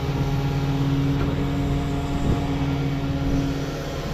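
A large engine running steadily at a constant speed, with a brief click a little past two seconds in.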